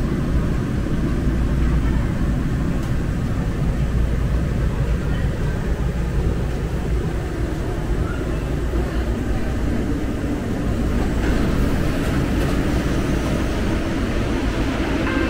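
Steady low rumble and hiss inside a Muni Metro light-rail car running through the subway and stopping at a station.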